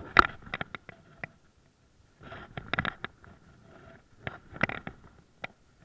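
Irregular clicks, knocks and scraping from a spinning rod and reel being worked while a hooked fish is fought, coming in short clusters about every second or two.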